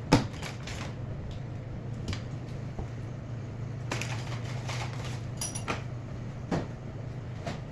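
A scattering of sharp clicks and knocks over a steady low hum. One loud knock comes right at the start, and a brief high-pitched ring follows about five and a half seconds in.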